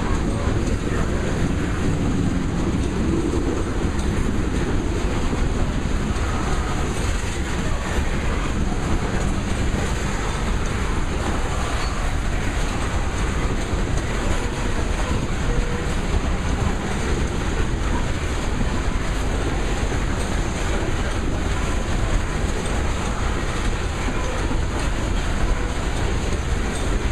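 Loaded coal hopper cars rolling past at steady speed: continuous noise of steel wheels on the rails, unchanged in level throughout.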